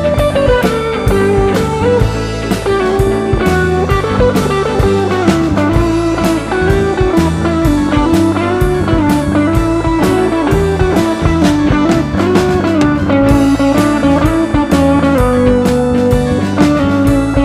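Live blues-rock band music: a guitar lead line bending and sliding over bass and a drum kit keeping a steady beat.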